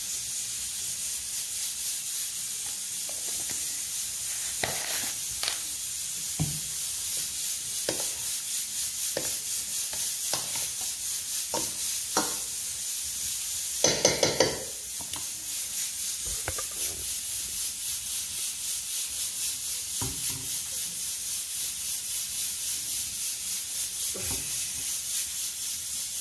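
A utensil tossing a lettuce and tomato salad with creamy dressing in a stainless steel bowl, with scattered scrapes and clinks against the metal and a quick cluster of them about 14 seconds in. A steady high hiss runs underneath.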